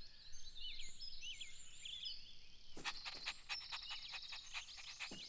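Faint cartoon garden ambience of birds chirping, short quick chirps high up. From about three seconds in, a run of rapid short chirps or clicks repeats several times a second.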